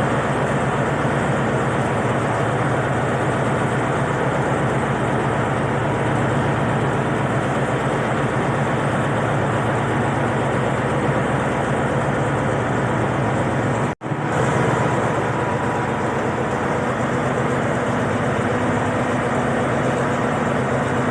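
Diesel engine of an Alsthom diesel-electric locomotive idling steadily while the train stands waiting for a signal; the sound drops out for an instant about 14 seconds in.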